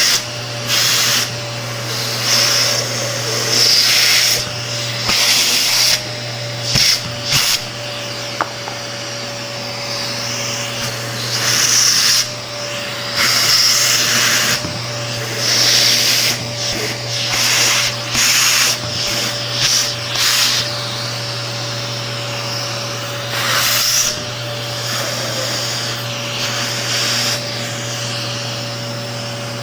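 Vacuum cleaner running steadily with a constant motor hum. Over the hum, the rush of air swells and drops again every second or two as the nozzle is worked over an electric fan.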